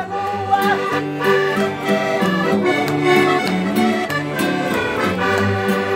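Button accordion playing an instrumental interlude between the sung verses of a despique, a Portuguese improvised sung duel, with steady chords and a bouncing bass rhythm.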